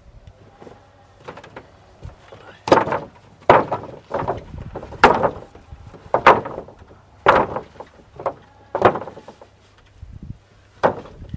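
Sawn edged boards being laid one by one onto a stack, wood clacking on wood: about nine sharp knocks at uneven intervals, the first loud one a couple of seconds in.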